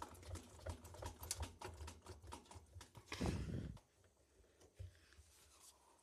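Quick run of light clicks and rubbing as a hand turns an Indesit washing machine's stainless steel drum and moves the towel inside it. A louder short rumble comes a little past three seconds in, then it goes quieter.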